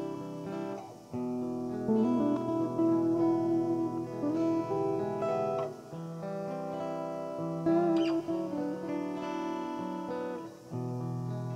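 Guitar-led theme music over the credits: plucked and strummed notes in a melody, with short breaks between phrases.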